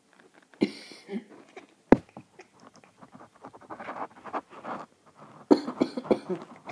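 A person coughing several times in short fits: a pair of coughs early, a sharp single one about two seconds in, and another fit near the end.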